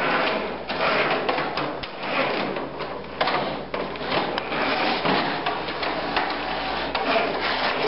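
A small prototype basketball-gathering robot running, its drive motors and scoop mechanism clattering, with frequent sharp knocks as basketballs strike the scoop and frame.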